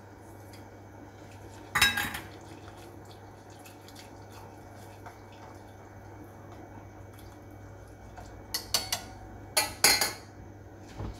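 Metal kitchen utensils, a skimmer and chopsticks, clanking against stainless steel pots: one loud clatter about two seconds in, a few light clicks later, then another loud clatter and a low thump near the end, over a steady low hum.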